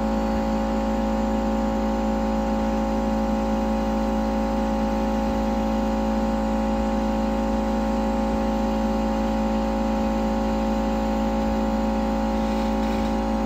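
Hot air gun blowing steadily to soften leftover adhesive on a phone's frame: a constant whirring hum with several steady tones over airflow noise.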